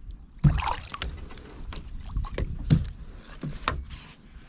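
Irregular knocks, thumps and light splashes in a small fishing boat as a freshly caught northern pike is handled and flops about.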